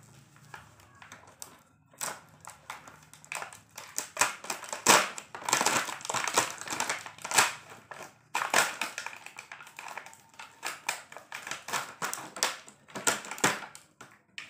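Clear plastic blister packaging of a toy pool game being pulled open and handled, crinkling and crackling in a run of irregular crunches that starts about two seconds in.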